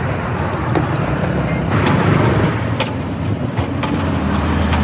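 A motor vehicle engine running steadily, with a couple of sharp clicks just past the middle.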